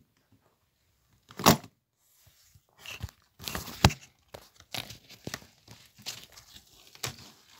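Rummaging through a suitcase: contents rustling and shifting, with a loud knock about a second and a half in and a sharp click near four seconds.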